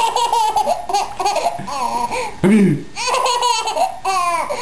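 Baby laughing in repeated high-pitched bursts, set off by an adult's fake sneezes. A short, lower-pitched adult voice comes in about two and a half seconds in.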